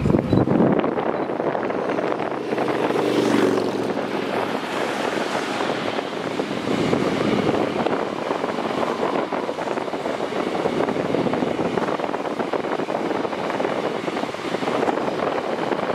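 A long passenger train passing on electrified track: two SBB Re 420 electric locomotives go by a few seconds in, the loudest part with a brief steady tone, then a long line of coaches keeps rolling past with a steady noise of wheels on rail.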